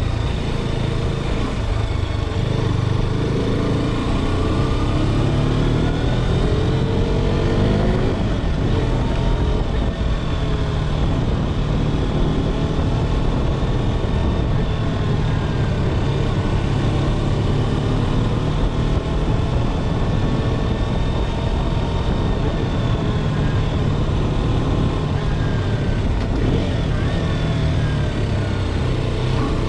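KTM RC 390's single-cylinder engine running while the bike is ridden, its pitch rising and falling again and again as the speed changes, over a steady rush of noise.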